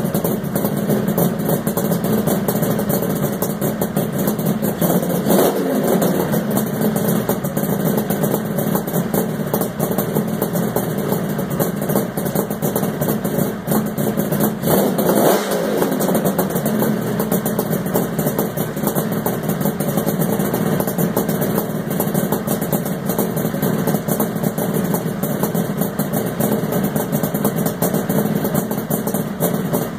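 1972 Kawasaki H1C Mach III's 500cc two-stroke triple engine running at idle, blipped up briefly twice, about five and fifteen seconds in.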